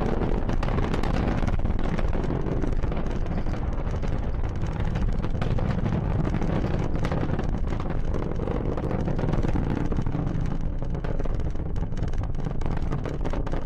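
Falcon 9 rocket's nine Merlin engines rumbling steadily during ascent, a dense low roar with a crackling edge.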